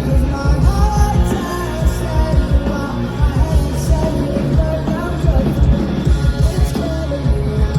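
Rock music with a singing voice over drums and guitars, playing continuously.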